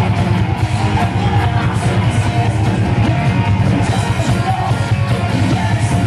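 Thrash metal band playing live: distorted electric guitars, bass and drums, with shouted vocals over them.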